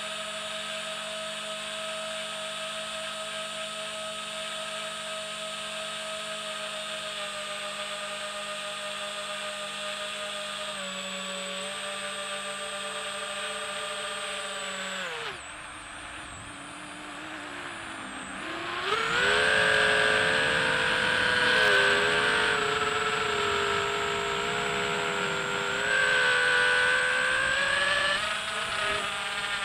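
Multirotor drone's electric motors and propellers whining steadily in flight. About halfway through, the pitch slides down as the throttle is cut for a descent. A few seconds later the whine returns louder, its pitch rising and wavering as power comes back on low to the ground.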